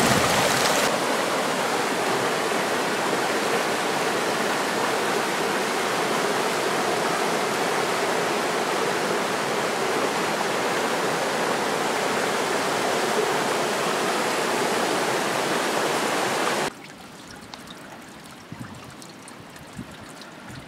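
Rapids of a mountain stream rushing over rocks, a steady loud wash of water. About three-quarters of the way through it cuts off suddenly to a much quieter faint trickle of water.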